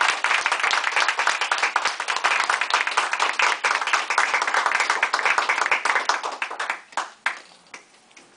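A small group of people clapping, dense and steady, then thinning out to a few last claps about seven seconds in.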